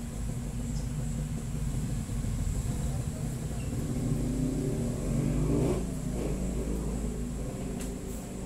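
A motor vehicle's engine passing by, swelling to its loudest about five to six seconds in and then fading, over a steady low rumble of traffic.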